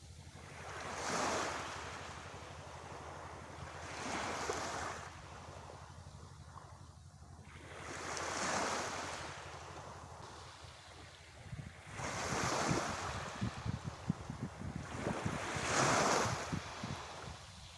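Sea waves washing onto a shore, each swell rising and falling away about every four seconds. In the last third, wind buffets the microphone with a low, fluttering rumble.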